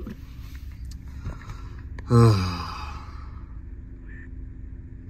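A man's loud, breathy sigh about two seconds in, falling in pitch, over a steady low hum inside a car's cabin.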